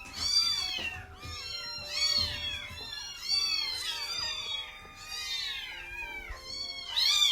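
Week-old kittens mewing over and over, high-pitched arching cries about one a second.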